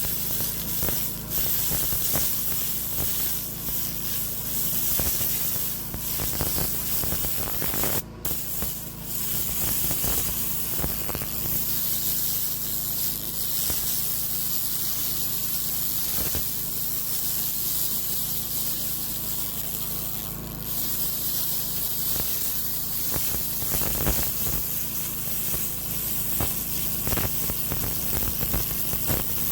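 200 W pulsed laser cleaning a metal surface: a continuous high hiss with fine crackle as the beam ablates the surface, over a steady low hum from the laser unit.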